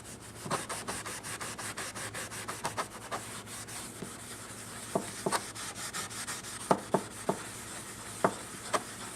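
Steel wool rubbed briskly back and forth over a hatchet, a quick, dense scratching, with a few sharper knocks scattered through it.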